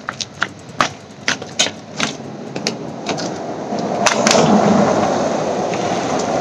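Footsteps on concrete steps, about two to three sharp steps a second, as someone walks down a stone staircase. From about three seconds in, a low rushing noise swells up and covers them.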